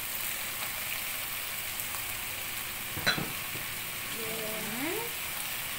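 Raw chicken feet sizzling in hot oil in a frying pan as they are stirred with a wooden spatula, with a single sharp knock about three seconds in.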